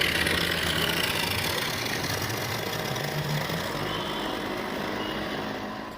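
Tourist passenger boat's engine running steadily as the boat gets under way: a low, even hum with a broad hiss over it.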